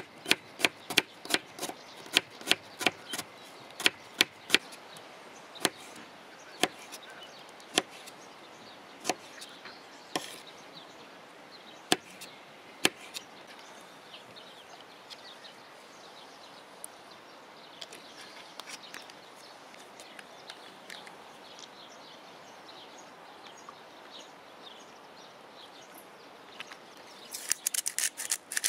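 A knife chopping an onion on a plastic cutting board, with sharp irregular taps for about the first dozen seconds that then thin out to faint handling sounds. Near the end a spice grinder is twisted over a bowl, making a rapid grinding rasp.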